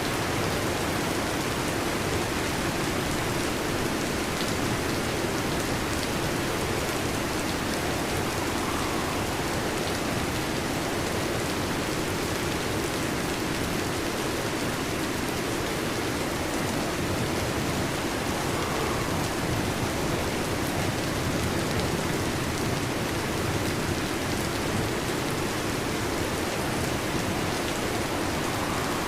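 Heavy rain falling in a steady, even downpour, with no thunder claps.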